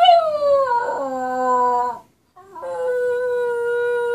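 West Highland white terrier howling ("singing"): two long howls, the first sliding down in pitch and ending about two seconds in, the second starting after a short break and held on one steady note.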